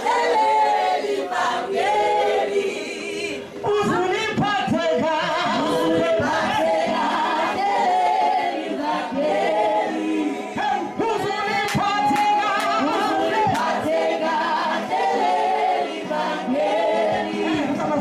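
A group of voices singing a gospel hymn without instruments, with a woman's voice on a microphone leading.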